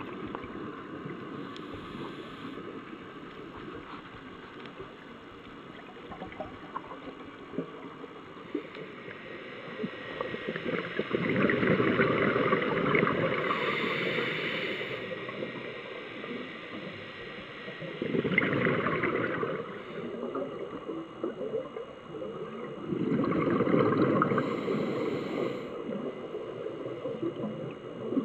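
Scuba diver's exhaled bubbles rushing from the regulator, heard underwater: three bursts of a few seconds each, the first about ten seconds in, over a steady low hiss.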